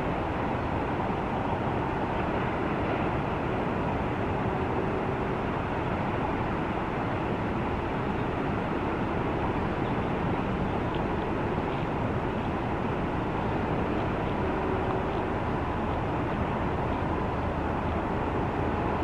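Steady rushing outdoor noise with a faint even hum.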